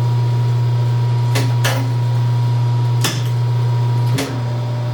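Hardinge HLV lathe setup running with a steady low hum, broken by four sharp metallic clunks, two close together early and two later. After the last one the hum drops a little.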